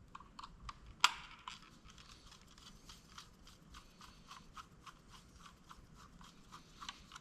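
Faint, quick small clicks and scrapes of a small screwdriver turning a tiny screw in a camera housing, with one sharper click about a second in.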